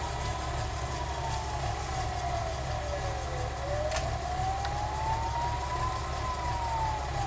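Emergency vehicle siren wailing slowly, its pitch rising and falling about once every five seconds, over a steady low rumble.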